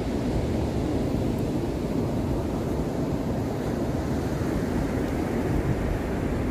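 Steady low rumble of wind on the microphone, mixed with the wash of surf.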